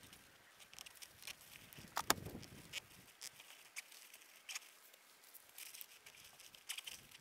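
Faint scattered rustles and clicks of a vehicle roof-rack awning's fabric and cover being rolled up and handled, with one sharper knock about two seconds in.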